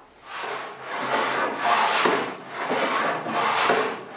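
Hand plane taking shavings off the edge of a wooden board: about five strokes in a row, each under a second.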